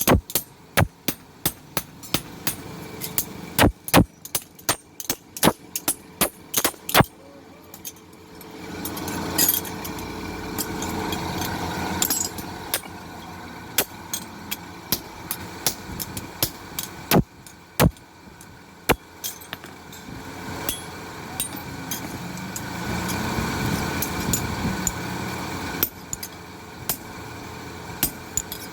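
Blacksmith's hammer striking metal in a rapid series of blows, two or three a second, while forging axe heads. After about eight seconds a steady mechanical noise takes over, with only occasional strikes.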